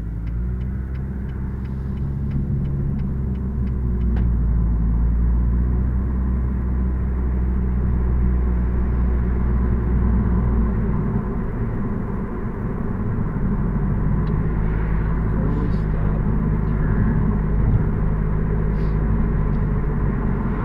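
Car engine and road rumble heard from inside the moving car. The engine note rises as the car gathers speed, then settles into steady cruising. A light ticking about three times a second sounds for the first few seconds, then stops.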